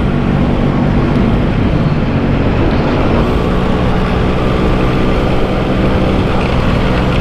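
Yamaha RX-King's single-cylinder two-stroke engine running while the bike is ridden, its note wavering at first and then holding steady from about three seconds in.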